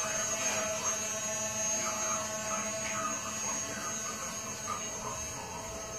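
A steady electrical hum, with faint scattered sounds behind it.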